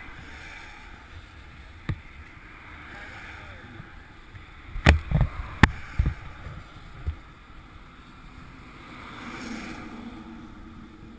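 Wind noise on a helmet-mounted GoPro's microphone, with a few sharp knocks against the camera or gear: one about two seconds in, a cluster about five to six seconds in, and one near seven seconds.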